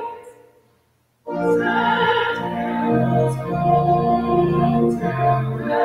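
Organ music that fades out to silence in the first second, then starts again with sustained chords that change every half second or so.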